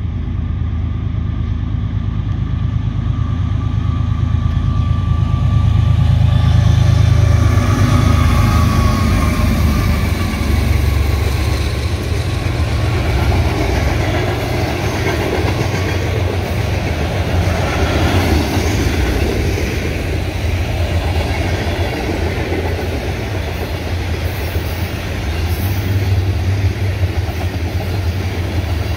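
Union Pacific mixed freight train passing: the lead diesel locomotives run loudest about seven seconds in, then covered hoppers and tank cars roll by with steady wheel-on-rail noise.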